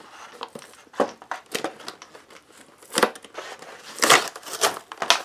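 Clear plastic blister packaging of a carded toy figure crinkling and crackling as hands pry it open from its cardboard backing, in irregular bursts that are loudest about three and four seconds in.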